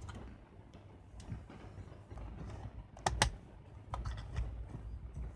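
Pentax Espio 140M compact film camera handled in gloved hands: soft rubbing and light plastic taps and knocks on its body, with two sharp clicks close together about three seconds in.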